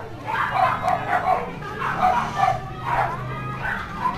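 A dog barking and yipping, in quick runs of short barks with a few drawn-out cries between.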